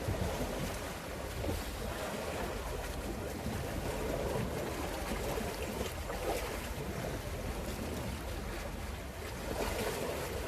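Wind and sea waves, with gusts buffeting the microphone; a steady rushing noise that swells and falls every few seconds.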